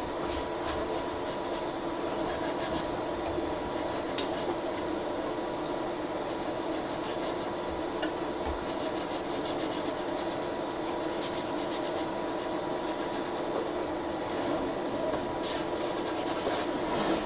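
Steady hum of a powered-on Geeetech A20 3D printer's fans, with scattered light clicks from handling at the bed.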